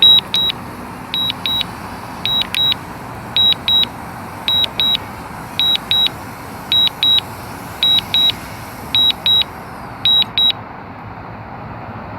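Pairs of short high-pitched beeps repeating about once a second, the DJI drone controller's warning tone during the Mavic Mini's low-battery automatic landing, over a steady hiss. The beeping stops about ten and a half seconds in, as the landing ends.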